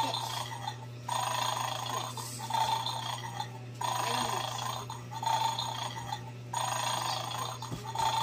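A short electronic tune playing over and over, each round lasting about two seconds with a brief break before it starts again.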